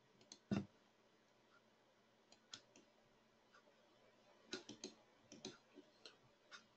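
A few faint computer mouse clicks in near silence: one about half a second in, another around two and a half seconds, then a quick run of several clicks near the end.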